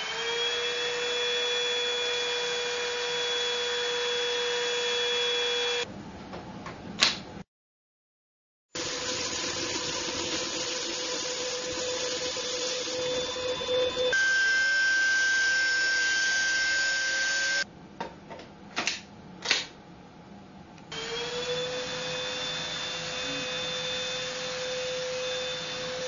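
TINTON LIFE VC812 cordless vacuum's motor whining as it spins up and runs at a steady high pitch. It cuts out and restarts a couple of times, with a few sharp clicks in the gaps.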